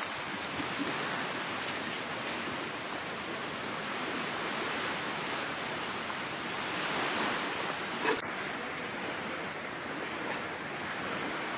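Surf washing on a beach, a steady rush that swells about two-thirds of the way through, with a single sharp click just after.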